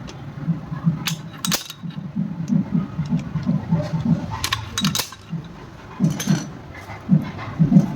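Metal engine parts and hand tools clinking and clattering during engine work: a handful of sharp metallic clinks over an irregular run of dull low knocks.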